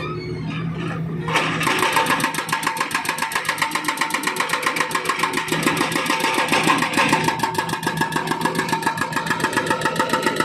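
Hydraulic breaker on a Volvo wheeled excavator hammering thick asphalt, a rapid run of blows about nine a second over the excavator's running engine. The hammering grows louder about a second in.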